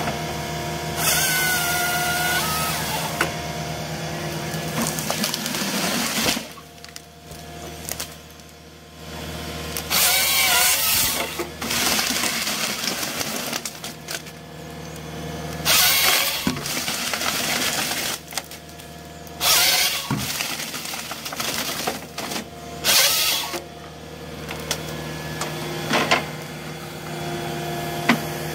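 A Volvo tracked excavator's diesel engine runs steadily while the harvester head on its boom saws through tree trunks with its chain saw, in about six loud bursts of a second or two each.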